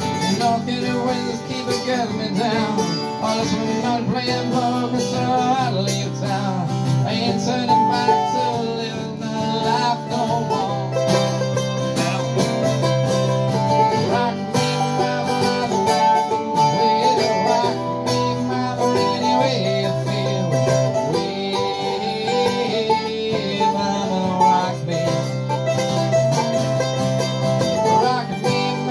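Live acoustic folk music from a duo, led by guitar with another plucked string instrument, with some long held melody notes over steady chords.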